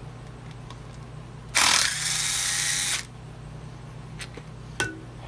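Cordless drill running in one burst of about a second and a half, backing a long through-bolt out of a trolling motor's end cap. A couple of light clicks follow as the bolt comes free.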